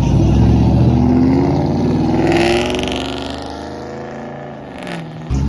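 Car engine accelerating past, its pitch climbing for a couple of seconds and then falling as it fades away.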